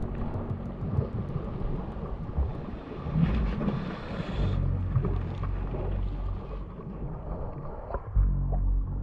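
Steady low motor rumble with noise from wind and water over it.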